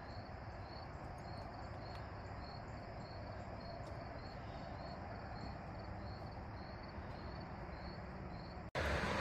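A cricket chirping steadily, a little over two short high chirps a second, faint over a low outdoor background noise. The chirping cuts off suddenly near the end.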